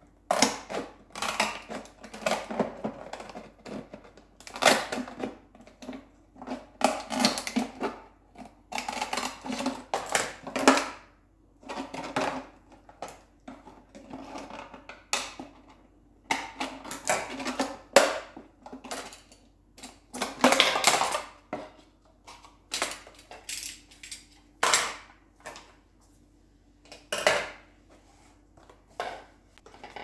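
Kitchen scissors cutting through a thin plastic PET water bottle, the plastic crackling and crinkling in a long run of short, irregular snips.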